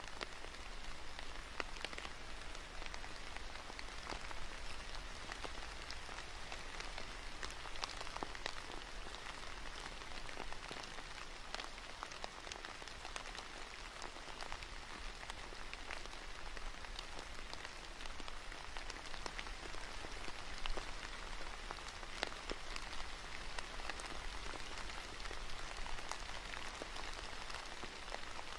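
Steady rain falling, with many separate drops heard as small ticks.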